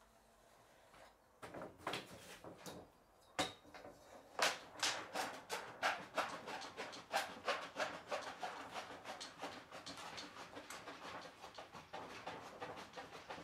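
Thin sheet metal being cut with hand tin snips: quick repeated crisp snips, about three or four a second, with the sheet crackling and rattling as it flexes. Handling clatter and a sharp knock come before the cutting starts.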